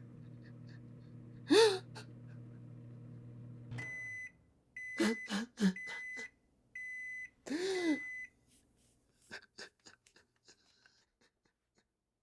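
Microwave oven running with a steady hum that stops about four seconds in, followed by a series of high beeps. Over it a man gasps and sobs, and a few small clicks and knocks follow near the end.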